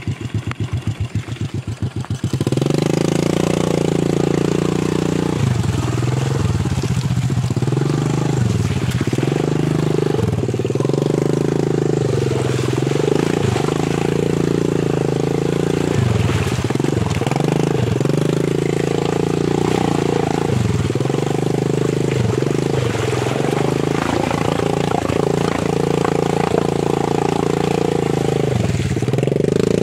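Motorcycle engine idling with a slow chug, then revving up about two seconds in and held at high revs, the pitch dipping and climbing again every few seconds as the bike is ridden hard through deep mud.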